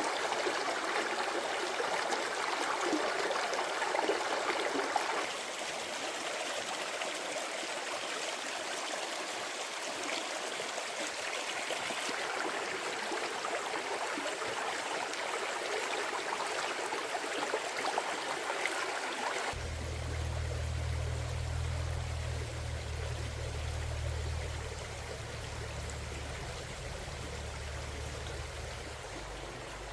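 Stream water running and babbling over rocks, an even rushing sound. About two-thirds through, the sound changes abruptly: the splashing softens and a steady low rumble comes in beneath it.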